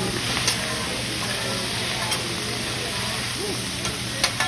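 Food sizzling on a hibachi teppanyaki griddle as it is stirred and turned with metal spatulas, with a steady hiss and three sharp clicks of spatula on the steel plate.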